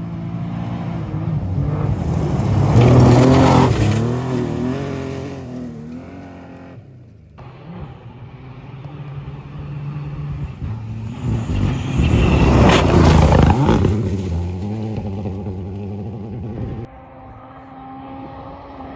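Rally cars at full attack on a gravel stage: one car approaches and passes close by, its engine rising in pitch and dropping through gear changes, loudest about three seconds in; a second car does the same, loudest about twelve seconds in. Near the end another car is heard far off.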